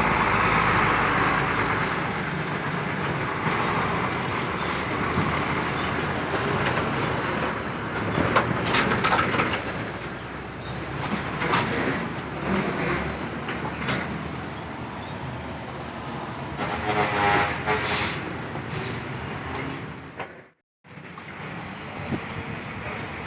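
Heavy road traffic with a big truck going by. About three-quarters of the way in, a multi-tone air horn of the ship-horn kind sounds for about a second and a half. Near the end the sound drops out completely for a moment.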